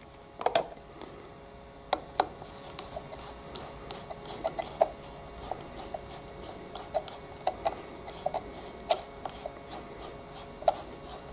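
Light, irregular clicks and taps of a hand tool and metal parts as the brake lever's pivot bolt is threaded back into the lever mount.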